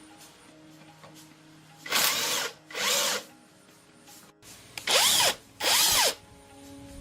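A handheld power drill run in four short trigger bursts of about half a second each, in two pairs, the motor spinning up and down in each burst.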